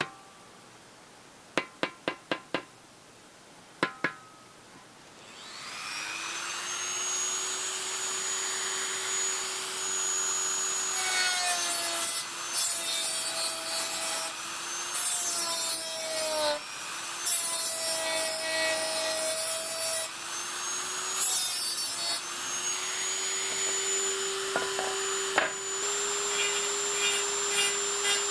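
A few sharp clicks, then a small rotary tool spins up to a steady high whine and grinds in repeated spells against the metal rim of the steelyard's pan, its pitch dipping each time the disc bites.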